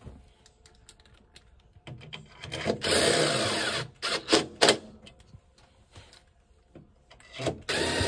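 Power drill driving in the screws that hold a washer's motor stator. It runs for about two seconds starting about two seconds in, gives two short bursts, then starts again near the end.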